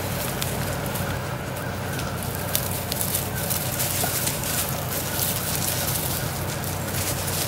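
Dry wood-chip mulch crackling and rustling as Weimaraner puppies scramble over it and push a ball through it, with a steady low hum underneath.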